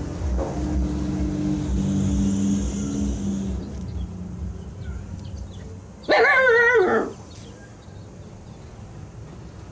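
A husky puppy gives one loud, wavering howl lasting about a second, about six seconds in.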